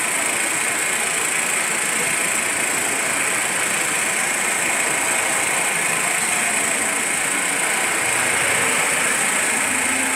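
Steady street traffic noise of motorcycles and cars, under a constant high hiss.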